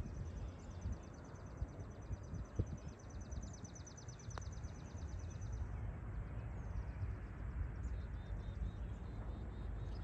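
A songbird singing one long, rapid, high-pitched trill that stops about six seconds in, over a steady low outdoor rumble, with one sharp click about four and a half seconds in.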